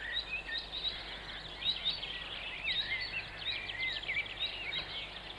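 Small birds chirping and twittering, a steady stream of short chirps and rising-and-falling whistles, over a faint steady low hum.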